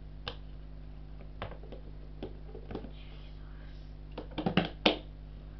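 Scattered light clicks and knocks of objects being handled, with a quick run of them a little over four seconds in ending in one louder knock. A steady low hum sits underneath.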